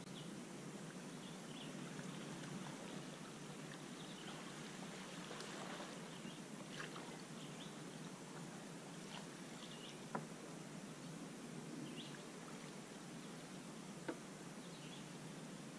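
Faint riverside ambience: a steady low hiss with short bird chirps scattered throughout. Two sharp knocks stand out, about ten and fourteen seconds in.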